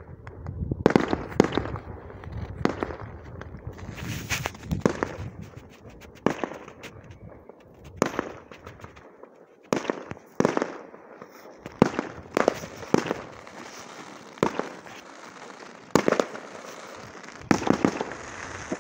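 Aerial fireworks bursting: a string of sharp bangs at irregular intervals, several coming in quick clusters of two or three, each trailing off briefly.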